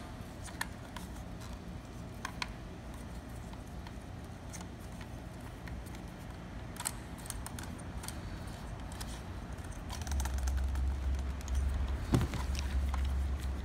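Scattered small clicks and taps of hard plastic parts being handled as a plastic phone-mount bracket is fitted onto an LED light panel. A low rumble comes in about ten seconds in.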